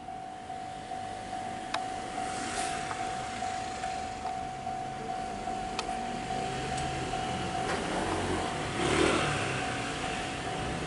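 Japanese railway level-crossing alarm ringing steadily as a train is due. A road vehicle passes about nine seconds in, over a few light clicks.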